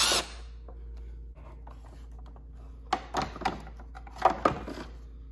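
A Milwaukee M12 cordless driver runs briefly at the very start, backing out a Phillips screw. Then come clusters of plastic clicks and scrapes, about three seconds in and again a second later, as the truck's tow-mirror turn-signal lamp is worked free of its housing.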